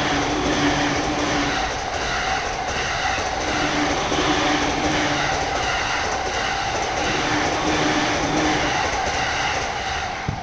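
JR electric train passing over a level crossing, wheels running on the rails, while the crossing's warning bell rings in a steady repeating pattern.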